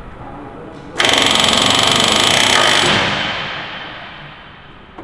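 Handheld pneumatic air tool running in a loud rapid rattle. It starts abruptly about a second in, holds for about two seconds, then dies away over the next second or so.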